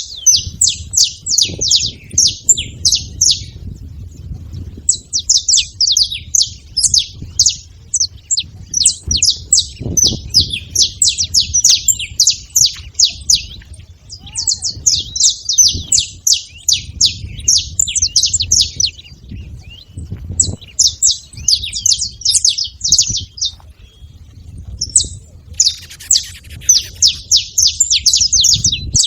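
Saffron finch chirping in repeated runs of rapid, high chips, each run a few seconds long with short pauses between.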